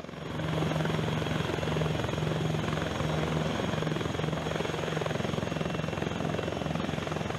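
Military helicopter in flight: rotor blades beating in a rapid, even rhythm over the steady hum of the turbine engines.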